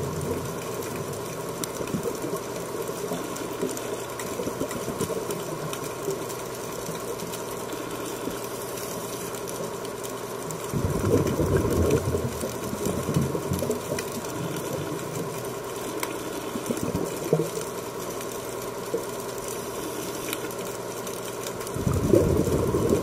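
Underwater ambience during a dive: a steady mechanical hum. A louder low rumbling comes twice, about 11 seconds in and again near the end.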